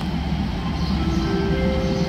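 Diesel railcar standing at the platform with its engine idling, a steady low rumble. About halfway in, a few faint steady tones enter one after another and hold.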